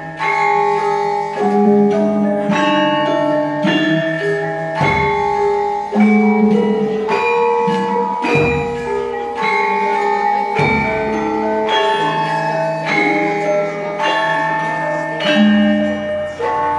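Javanese gamelan playing: bronze metallophones struck in a steady, ringing melody, with deep gong strokes every few seconds.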